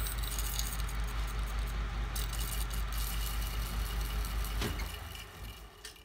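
Rotex horizontal milling machine running a slitting saw through a bicycle fork crown to cut the binder-bolt slit: a steady motor hum under a metallic rattle. A little under five seconds in it stops with a knock and winds down.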